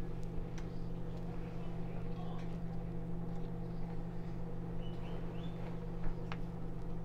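Silicone spatula lightly scraping and clicking against a glass bowl and a foil pan while cream cheese frosting is spread over cinnamon rolls, with one sharper click about six seconds in, over a steady low hum.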